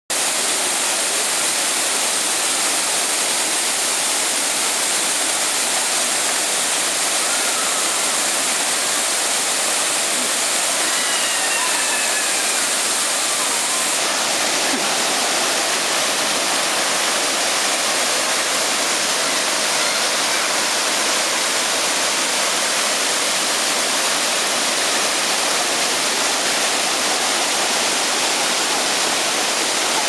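Waterfall cascading over boulders into a rock pool: a loud, steady rush of falling and churning water.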